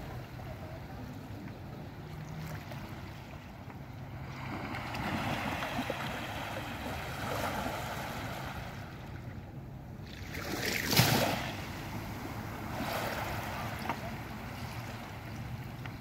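Small waves of a calm sea breaking gently and washing up a sand-and-pebble beach, the wash swelling and fading every few seconds. The loudest break comes about eleven seconds in.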